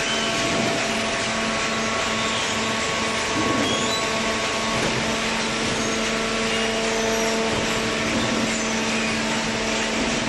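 Industrial cardboard shredder and baler machinery running: a steady mechanical drone and whir with a constant hum, unchanging throughout, with faint brief squeaks high up.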